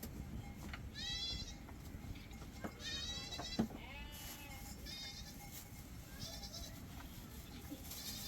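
Young livestock bleating: about six short, high, quavering calls, the loudest about a second and three seconds in. A single sharp knock sounds between calls, about three and a half seconds in.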